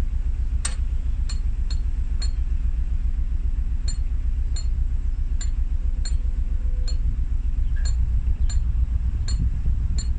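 Narrowboat diesel engine idling as a steady low rumble, with short metallic clicks about twice a second over it.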